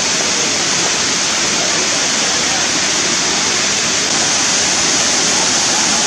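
Waterfall rushing: a steady, dense hiss of falling water, rising slightly in level about four seconds in.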